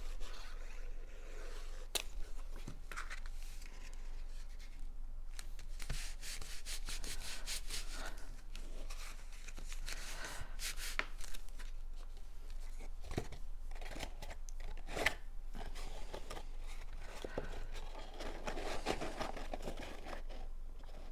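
Cardstock being handled and pressed together: paper rubbing and rustling, with many small clicks and scrapes.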